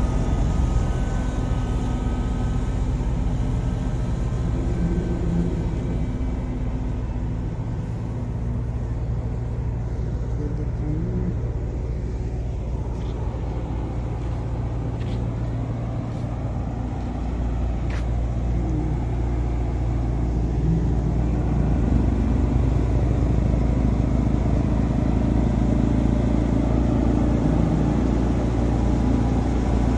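Diesel engines of road rollers running steadily on fresh asphalt. First an Ammann pneumatic-tyred roller passes close by, then, from partway through, a tandem drum roller is heard, growing a little louder toward the end as it comes nearer.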